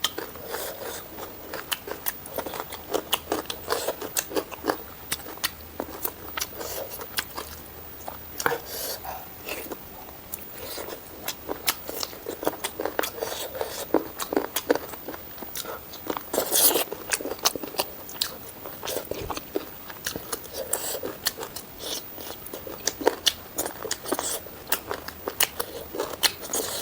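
Close-miked eating: repeated crunchy bites and chewing of food, with a louder crunch about two thirds of the way through, typical of biting into raw salad vegetables between mouthfuls of curry and rice.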